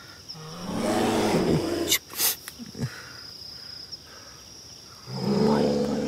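Two long, drawn-out animal calls, one about half a second in and another near the end, with a sharp tap between them. The campers take it for a bear right at their tent.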